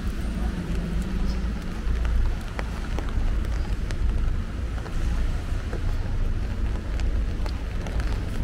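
Rain falling on wet pavement, with wind buffeting the microphone in a heavy, uneven rumble and scattered sharp ticks of drops.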